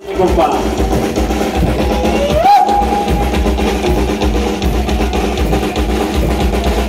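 Music with a strong drum beat and bass, starting suddenly out of silence; a tone slides up in pitch about two and a half seconds in.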